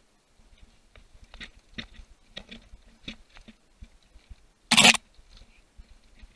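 Mountain bike rattling down a rocky, rooty trail: an irregular string of clicks and knocks from the bike jolting over roots and stones, with one short, loud burst of noise about five seconds in.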